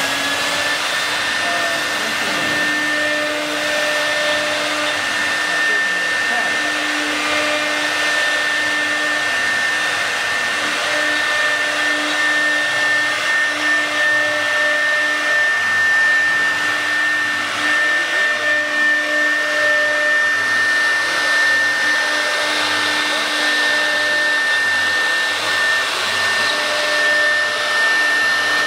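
CNC router running, its spindle holding a steady high whine over a rushing air-like noise.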